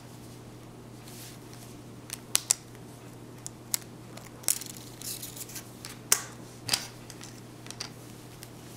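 Plastic housing of an LG touchscreen cell phone being pried apart by hand: irregular sharp clicks and snaps, the loudest about six seconds in, over a faint steady low hum.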